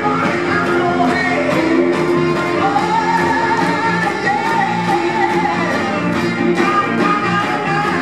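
Upbeat 1950s/60s-style R&B dance music, a singer over a steady drum beat, played loud.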